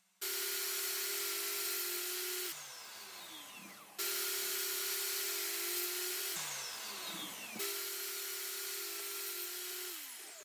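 Table saw running steadily while spline slots are cut in a mitred corner with a spline jig, then switched off and coasting down with a falling whine. This happens three times, the last wind-down starting near the end.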